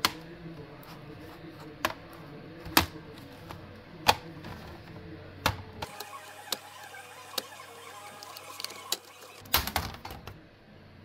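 Sharp clicks and taps of a laptop and its parts being handled and set down on a work surface. There are several separate knocks a second or so apart, then a quick cluster of clicks near the end.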